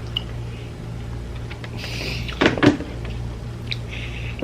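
Eating and handling sounds: two sharp knocks a moment apart about halfway through, like a utensil or container being knocked while eating, with a few faint shorter clicks, over a steady low hum.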